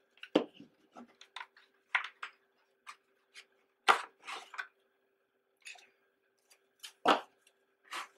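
A cardboard photo-set sleeve being handled: its flap folded open and photo cards slid out, with paper rustling and light clicks and about four louder taps of card against the table. A faint steady hum runs underneath.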